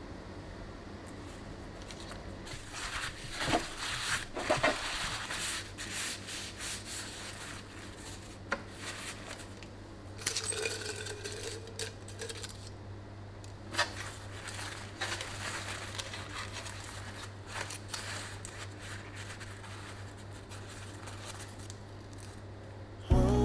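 Hands handling a paper towel and eucalyptus stems on a table: soft rustling and crinkling of paper with scattered small taps and clicks, over a low steady hum. Music starts right at the end.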